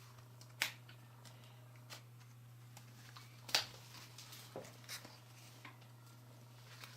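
A few light clicks and taps of wooden jigsaw puzzle pieces being handled and set down, the loudest about three and a half seconds in, over a steady low hum.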